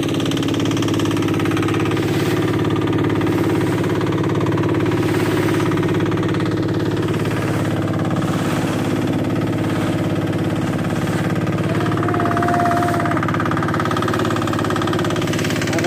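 Small motor of an artisanal fishing boat running steadily with an even, fast beat while the boat is under way.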